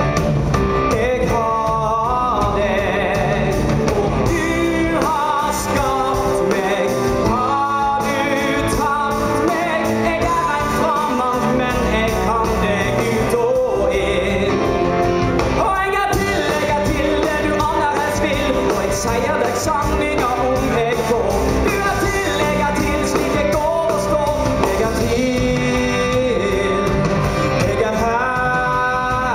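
A male singer sings a rock musical-theatre song in Norwegian over rock band accompaniment.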